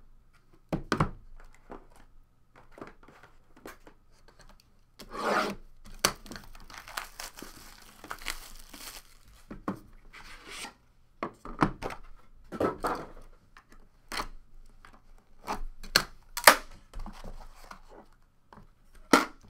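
A sealed trading-card hobby box being unwrapped and opened: plastic shrink-wrap tearing and crinkling in a longer stretch around the middle, cardboard sliding and rubbing, and a number of sharp knocks of the box against the wooden table.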